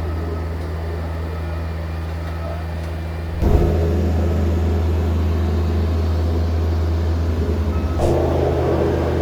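Diesel engine of asphalt paving machinery running with a steady low drone. The sound turns abruptly louder about a third of the way in and shifts again near the end.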